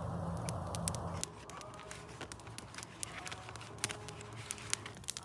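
Wood fire crackling, with many sharp, irregular pops. A low rushing noise fills the first second or so.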